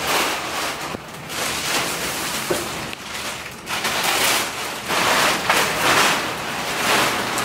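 Thin clear plastic film crinkling and rustling as it is pulled and peeled off a vacuum-packed memory foam mattress, in repeated surges.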